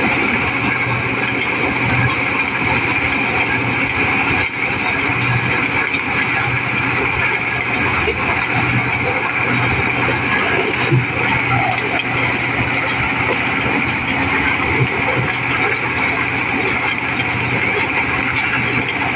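Mobile corn sheller running steadily under load, a continuous machine drone of engine and threshing drum while cobs are fed in and shelled kernels stream out of the chutes.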